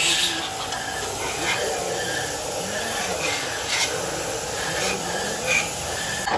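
Handheld spray gun with a fluid cup hissing steadily as it blasts a fine mist of cleaning fluid over a bare engine block, with a few short louder spurts.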